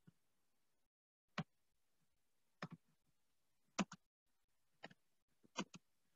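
Faint computer keyboard keystrokes while a short phrase is typed: about ten sharp clicks at an irregular pace, several in quick pairs.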